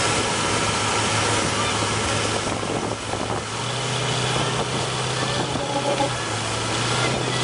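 Pickup truck engines running at steady revs, the hum stepping up in pitch about three and a half seconds in, over a steady wash of outdoor crowd noise.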